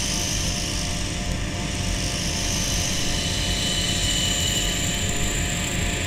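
Corded electric jackhammer (demolition hammer) running continuously with its chisel bit in rock, a steady rapid hammering as it breaks the rock.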